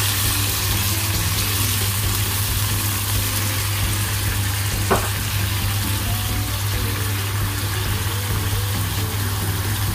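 Sliced carrots and sautéed spice paste sizzling steadily in a non-stick frying pan with a splash of water just added, stirred with a silicone spatula, with one brief sharp sound about five seconds in.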